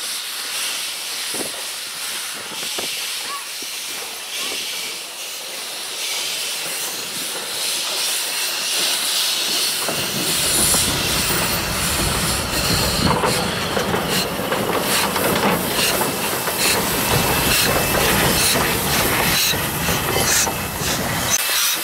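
Narrow-gauge steam locomotive NM25, built 1925, hissing steam while shunting. About ten seconds in it passes close by, tender first, and gets much louder, with steam hiss and scattered clicks from its running gear.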